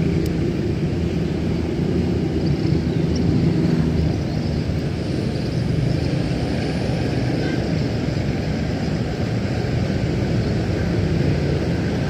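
Steady rumble of road traffic, with a low engine hum that fades about four seconds in.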